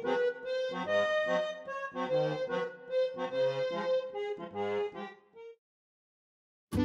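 Background music with a repeating bass pattern, fading out about five seconds in; a moment of silence follows and new music starts right at the end.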